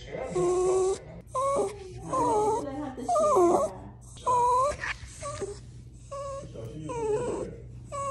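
Small scruffy terrier-type dog whining and wailing in a string of drawn-out, wavering cries, about one a second.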